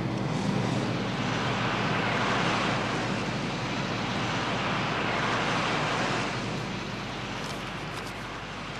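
Road traffic noise, a broad rushing sound of a vehicle going past that swells over the first few seconds and eases off after about six seconds.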